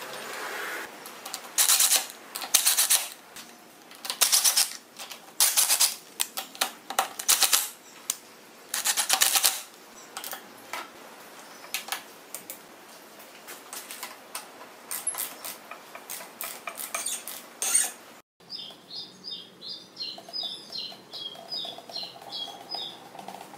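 Ratchet wrench clicking in quick runs, about ten in a row, as it turns the handlebar riser bolts, followed by lighter scattered clicks. Near the end comes a run of high chirping.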